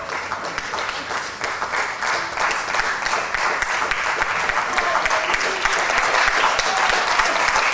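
Audience applauding, the clapping growing gradually louder.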